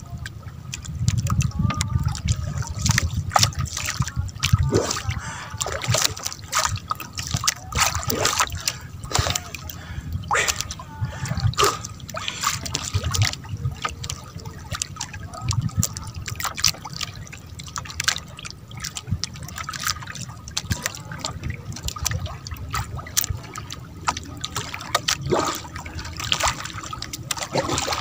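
Sea water sloshing and splashing, with many short, sharp splashes and knocks scattered through it over an uneven low rumble.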